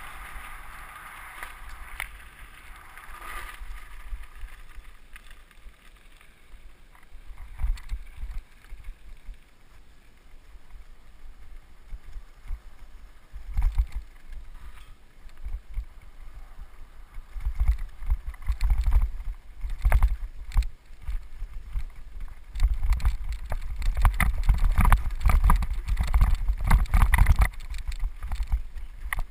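Mountain bike descending fast: wind buffeting the microphone and tyres rumbling over gravel and dirt, with the bike rattling and knocking. The rumble and clatter grow louder and busier in the second half, as the trail turns rough and bumpy.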